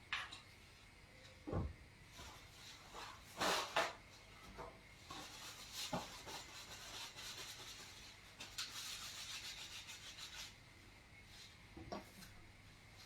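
Food-preparation handling noises: a dull thump, a couple of clattery knocks, then about five seconds of scraping or rustling, and one more knock near the end.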